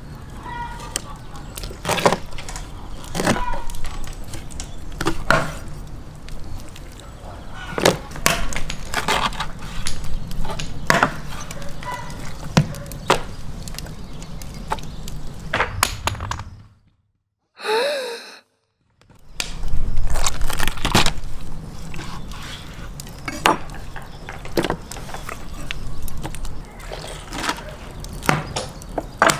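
Large kitchen knife chopping raw whole chickens on a wooden cutting board: irregular sharp cracks and knocks as the blade breaks through bone and strikes the board. The chopping stops for about two seconds a little past the middle.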